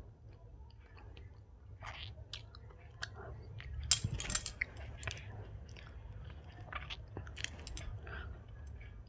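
Close-miked chewing of soft Indian sweets: wet mouth clicks and smacks throughout, with a louder burst of biting and crackling about four seconds in.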